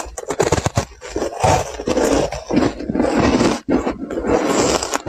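Close-miked chewing of a matcha-dusted ice cube: a dense run of crunching and crackling, with a few brief pauses between bites.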